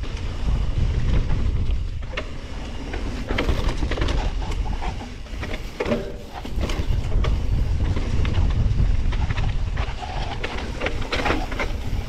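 Mountain bike riding down a rooty dirt trail, heard from a camera on the rider: the tyres rumble over the ground while the bike's frame, chain and parts rattle and clack with many short knocks, over wind rumble on the microphone.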